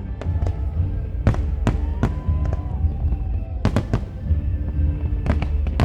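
Aerial fireworks going off in a display: a string of sharp bangs, some in quick pairs, over a steady low rumble.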